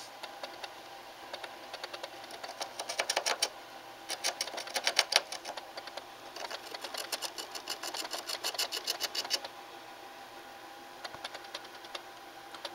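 A small animal scratching and digging inside a bedroom wall. The noise is rapid, dense scratchy clicking in three bursts of a couple of seconds each, with short pauses between, and a faint spell near the end.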